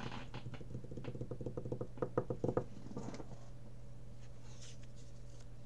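Trading cards being handled and thumbed through by hand, a rapid run of soft paper ticks and flicks for about two and a half seconds, loudest near the end, then a few more a moment later.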